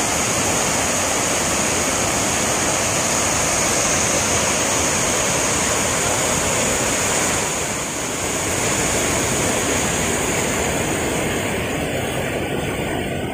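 Steady rush of water pouring over a dam's stepped concrete weir and churning into the pool below, with a brief slight dip a little past halfway.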